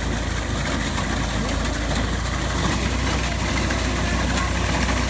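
Tractor diesel engine running steadily under load, driving a front-mounted reaper as it cuts through standing wheat.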